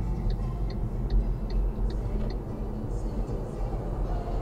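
Road and engine rumble inside a moving car, with the turn indicator ticking about two and a half times a second until it stops a little past halfway.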